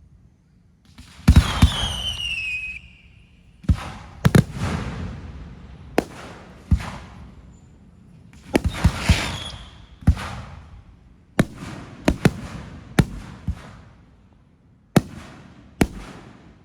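Fireworks going off in an irregular string of sharp bangs, some in quick doubles and triples, each followed by a fading rumble. About a second in, a whistle falls in pitch for a second and a half.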